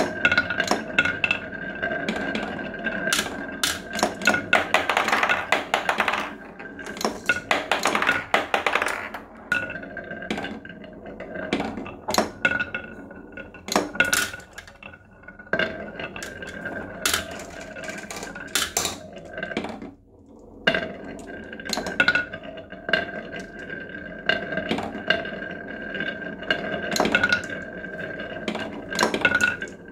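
Marbles rolling along grooved wooden marble-run tracks with a steady rolling hum, clicking and clacking against the wood and each other as they drop and pile up. The clicks come thick and uneven, with a brief lull about two-thirds through.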